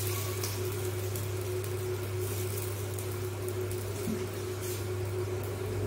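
A steady low mechanical hum with a constant mid-pitched tone, with faint scraping from a ladle spreading uttapam batter on an iron tawa.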